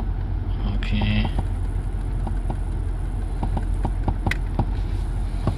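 Low steady hum of a Toyota Prius running, with faint regular ticking about three times a second.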